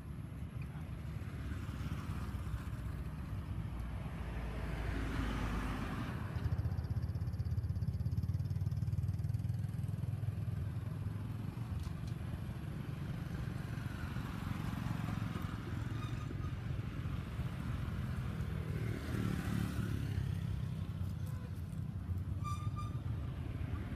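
Steady low outdoor background rumble, swelling twice into a broader wash of noise for a few seconds at a time.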